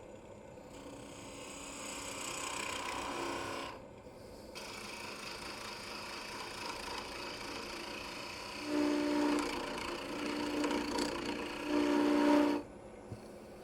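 Spindle gouge cutting into black walnut spinning on a wood lathe, a steady scraping hiss with a short break about four seconds in. From about nine seconds in a steady droning tone rides along with the cut, and the cutting stops near the end.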